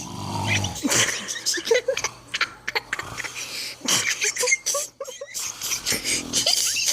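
A sleeping man snoring, one snore at the start and another near the end.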